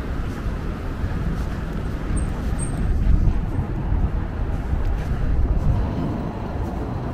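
Road traffic on a busy city avenue: a continuous low rumble of engines and tyres that swells as vehicles pass, about three seconds in and again about five and a half seconds in. Two brief high-pitched chirps sound just after two seconds in.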